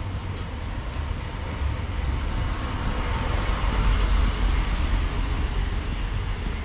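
A vehicle passing close by, its rumble and road or rail noise swelling to a peak about four seconds in and then easing off.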